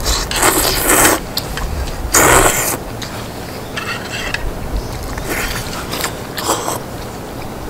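Close-miked eating sounds from spicy braised chicken and glass noodles: chewing with small clicks, and two louder noisy bursts in the first three seconds.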